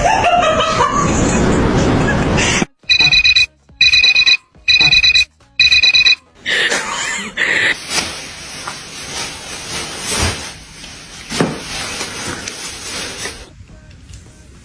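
Four electronic beeps, each a steady two-tone note about half a second long, coming about once a second, among music and other background sound.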